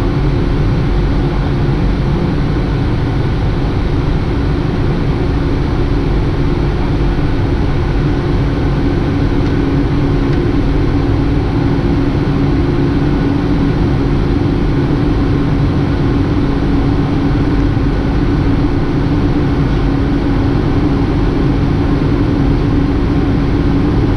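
Airliner cabin noise during climb-out after takeoff: the steady drone of the jet engines and rushing air, with a steady low hum under it.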